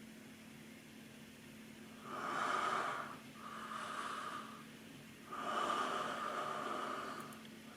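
A woman yawning: three breathy sounds of air drawn in and pushed out through a wide-open mouth, starting about two seconds in, the last one the longest.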